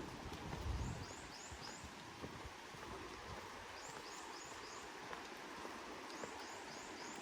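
Steady patter of rain in a forest, with a bird repeating a short phrase of three or four high chirps several times. A brief low rumble about a second in.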